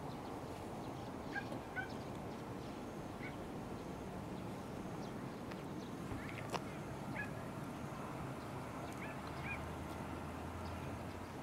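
Open-air ambience with short chirping bird calls, several in quick pairs, scattered through a steady background hiss. A single sharp click comes about six and a half seconds in, and a low steady hum joins about eight seconds in.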